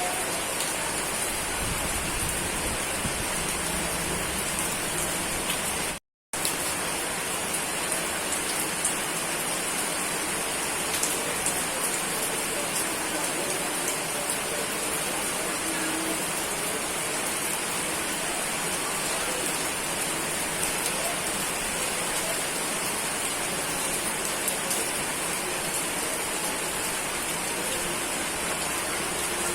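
Steady rain falling hard and evenly, an unbroken hiss of drops on surfaces. It cuts out to silence for a split second about six seconds in.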